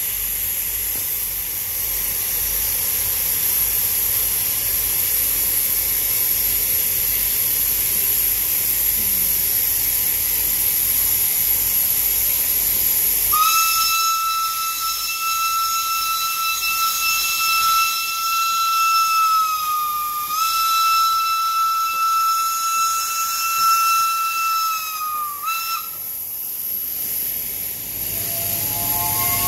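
Steam locomotive No. 824 hissing steam steadily. About 13 seconds in, its steam whistle sounds a long, steady blast that sags in pitch and breaks off briefly, then blows again for about five seconds, falling at the end and finishing with a short toot.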